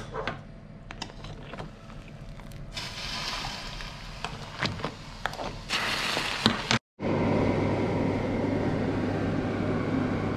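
A lobster boiling in a stainless steel pot of water on the hob: bubbling with scattered clicks over a steady low hum. After a sudden cut about seven seconds in, a steady whirring noise with a low hum.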